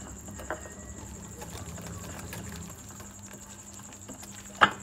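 Wire whisk mixing flour into a wet batter in a glass bowl, the wires scraping and lightly ticking against the glass, with one sharp knock near the end.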